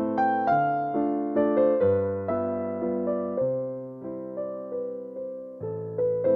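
Background piano music: slow, gentle notes and chords struck one after another, each left to ring and fade.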